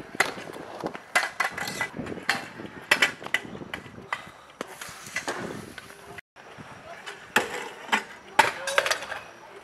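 Freestyle scooter wheels rolling on concrete, with many sharp clacks as the deck and wheels slap down on landings and tricks. The sound breaks off briefly about six seconds in and then goes on with more clacks.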